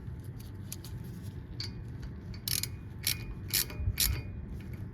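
A wrench working two nuts locked together on a damaged hub flange stud of a Toyota Land Cruiser 100 Series, making several short bursts of clicking. The stud will not turn: the whole hub turns with it.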